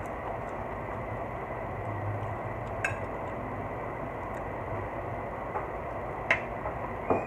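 Steady background hum and hiss with a few short sharp clicks, as a person chews a mouthful of rice and beans and lifts more with a metal spoon.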